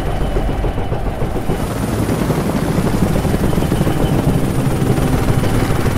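Helicopter in flight: steady low rotor and engine noise with a fast pulsing beat.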